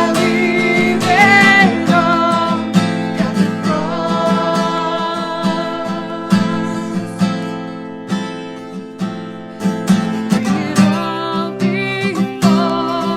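Music: acoustic guitar strummed and picked, with a voice singing a wavering melody near the start and again near the end.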